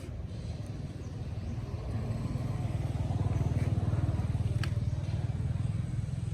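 A low engine rumble, like a motorcycle or other vehicle running nearby, growing louder through the middle and easing slightly toward the end, with one sharp click a little after the middle.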